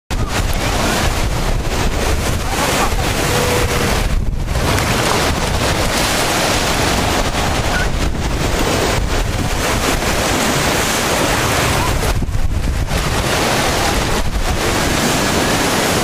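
Small waves washing up on a sandy beach, under steady wind noise on the microphone.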